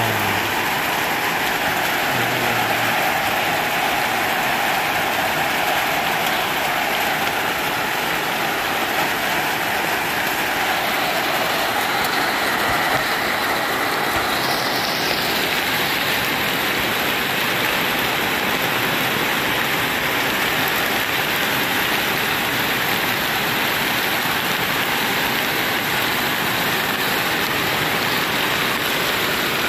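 Rain falling steadily on a corrugated metal roof, heard from underneath as a dense, even hiss.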